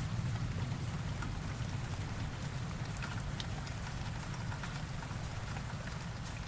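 Steady rainfall from a rain sound effect, with scattered individual drops ticking over an even hiss. A low rumble underneath slowly fades.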